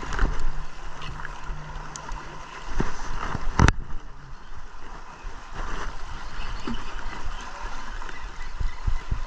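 Wind and choppy lake water lapping against an aluminium fishing boat, with one sharp click about three and a half seconds in.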